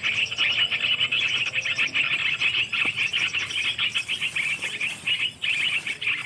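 Dense, continuous high-pitched chirring of animal calls, with a brief break about five seconds in.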